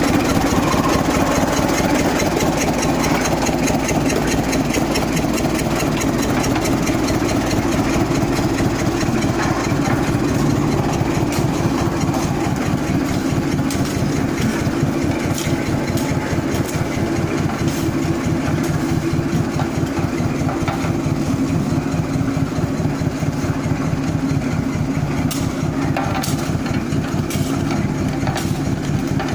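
Diesel engine of a road roller running steadily at idle, with an even, rapid chug of its firing pulses. There are a few light clicks near the end.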